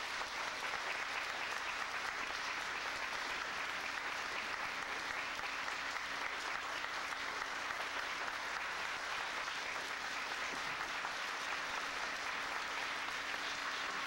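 A large audience applauding steadily, a dense, even clatter of many hands clapping that holds throughout.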